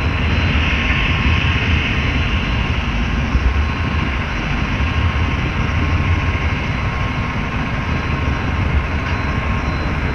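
Steady rolling rumble of an HO-scale model train's wheels on the track, picked up through a GoPro riding on a flatcar just ahead of the Santa Fe F-unit locomotive. A thin steady whine sits above the rumble.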